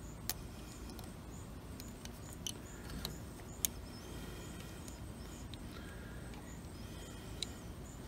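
A few light, scattered clicks of a metal pick scraping in a Holley carburetor's mixture-screw bore, digging out the old cork gasket that is leaking fuel. Under them runs a faint, steady low rumble.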